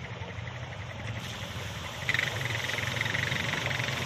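Quad bike engines running as the lead quad drives into a shallow river ford, its wheels churning up splashing, spraying water. The engine hum holds steady while the rush of water joins about a second in and grows louder from about two seconds in as the quad comes closer.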